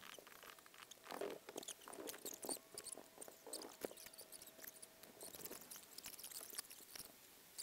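Faint computer keyboard typing: soft, irregular key clicks, with a faint steady tone underneath through the middle.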